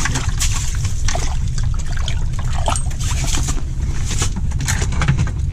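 Water splashing and dripping as a fish is lifted out of an ice-fishing hole, with scattered clicks of handling, over a steady low rumble.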